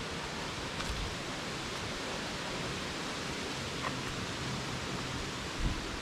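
Steady, even rushing hiss of distant flowing water, with a few faint knocks of footsteps on the trail.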